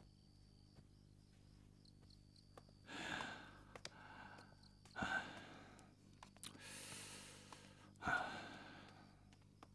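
A man sighing four times, long breathy exhales a second or two apart. Crickets chirp faintly in the background.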